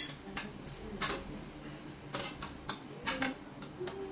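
Wardrobe frame poles and plastic connectors being handled and fitted together: a series of short, irregular clicks and taps.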